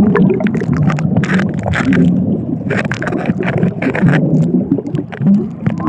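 Pool water sloshing and gurgling around a phone in a waterproof pouch held underwater, heard muffled, with short splashes throughout.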